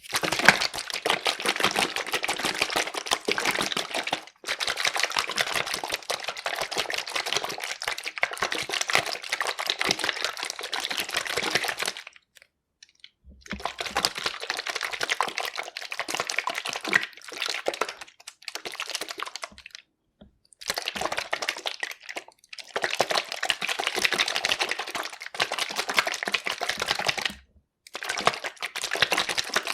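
Plastic bottle of yoghurt shaken hard by hand, the yoghurt sloshing and slapping inside in fast, dense strokes. It comes in several bouts of a few seconds each, broken by short pauses.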